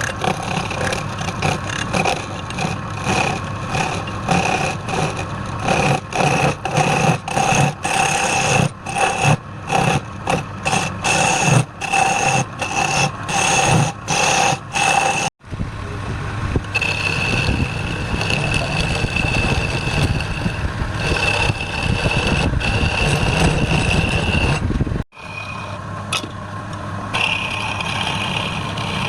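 Wood lathe motor running at a steady pitch while a turning tool scrapes and cuts the spinning wood. For about the first half the sound is chopped by many short breaks; after that it runs steadily, with two sudden cuts.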